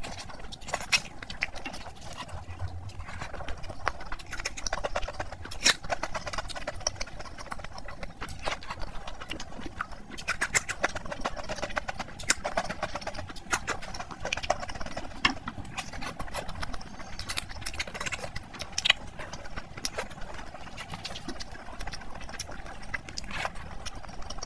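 Close-miked mouth sounds of a person eating luchi with mutton curry: wet chewing and lip-smacking heard as a steady run of irregular sharp clicks.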